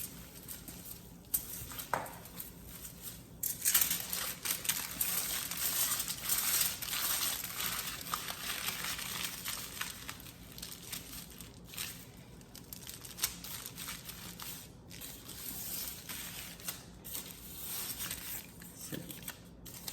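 Wrapping crinkling and rustling in uneven bursts as it is handled and rolled around a log of lazy-cake mixture.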